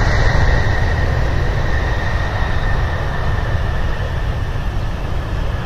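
A wide-body jet airliner's engines running at taxi power, a steady high whine over a low rumble and hiss, slowly growing a little quieter.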